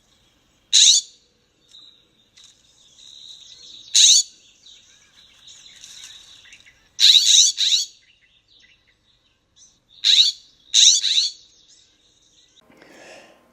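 California scrub jay calling in a field recording: six short calls, the later ones in pairs, spaced a few seconds apart.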